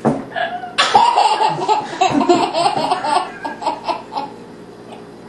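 A man and a toddler girl laughing together in quick repeated bursts for about four seconds, dying away near the end.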